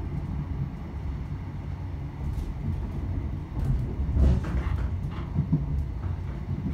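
Cabin running noise of a class 321 electric multiple unit under way: a steady low rumble of wheels on rails. It swells into a louder jolt with a few knocks about four seconds in.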